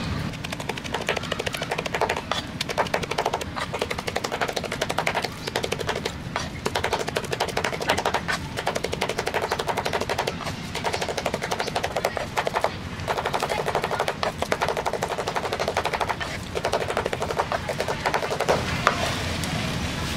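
Cleaver rapidly mincing red chilies into a paste on a wooden cutting board: a fast, steady run of knocks of blade through food onto wood, broken by a few short pauses and stopping near the end.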